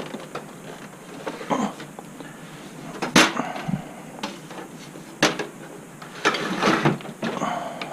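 Several separate sharp knocks and clunks, the loudest about three seconds in and others near five and seven seconds: a desktop computer tower and its cables being handled and pushed back into place under a desk.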